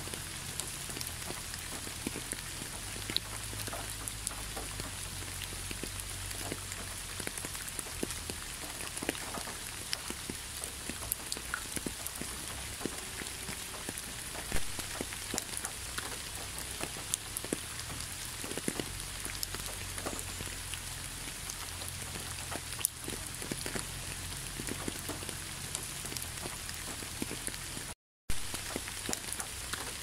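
Steady rain falling on a wet asphalt road: a constant hiss dotted with many separate drop ticks. The sound cuts out for a split second near the end.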